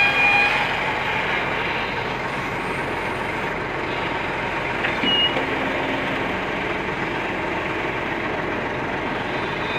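Kobelco SK200 hydraulic excavator's diesel engine and hydraulics running steadily. A few short high squeals come near the start, and a single sharp knock about five seconds in.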